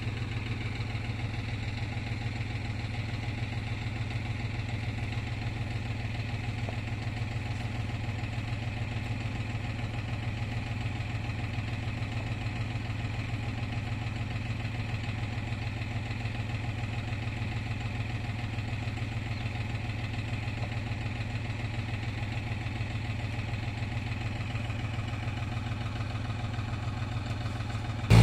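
An engine idling steadily, a low, even note that does not rise or fall.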